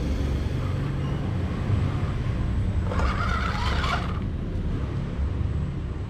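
Injora four-wheel-steer RC rock crawler driving under load against a steady low rumble. About three seconds in there is a louder, harsher burst lasting about a second as the crawler tips up onto the wooden board.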